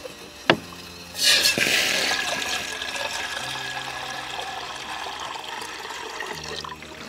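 Water poured from a plastic bottle into a metal camping kettle: a loud splash about a second in, settling into a steady pour that stops near the end. A single sharp knock comes just before the pour starts.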